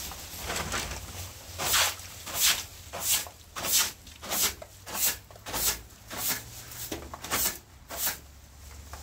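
Short hand broom sweeping rainwater off a wet concrete step, a rhythmic swish-and-splash about one and a half strokes a second, starting a couple of seconds in and ending near the close.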